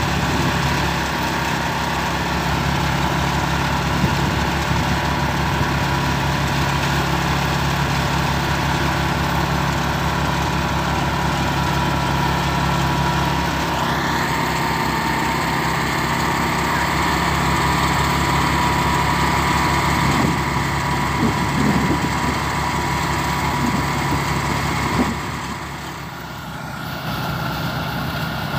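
Engine-driven portable rice thresher running steadily under load as rice sheaves are fed in, a constant engine hum with a steady high whine over it. It goes quieter for a moment near the end.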